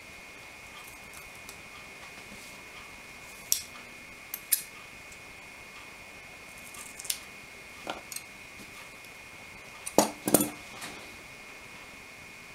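Light clicks and taps of small tools and parts being handled at a workbench, scattered and a few seconds apart, with the loudest pair about ten seconds in, over a steady high-pitched whine.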